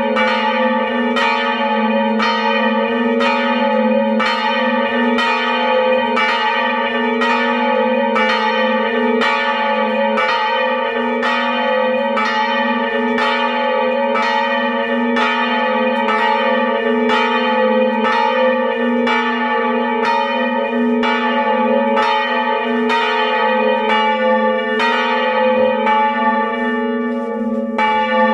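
Two swinging church bells of about 450 kg and 380 kg ringing close up inside the belfry, their clappers striking about twice a second in a steady rhythm. The strokes overlap into a continuous ringing over a steady low hum.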